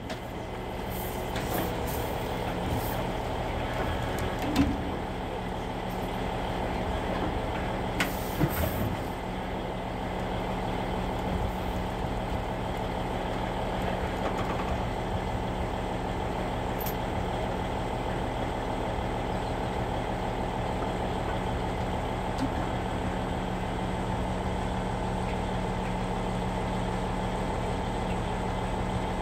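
A heavy engine running steadily at idle, with a few short hisses in the first nine seconds.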